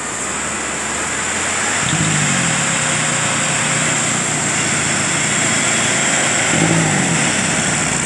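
Tractor engine working under load as it pushes a ski boat on its trailer into the surf, its pitch rising about two seconds in and again near the end, over the steady wash of breaking waves.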